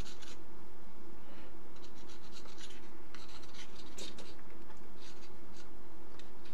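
Screwdriver tip scraping and rubbing along a dial knob's shaft as grease is spread onto it, in short, uneven scratches.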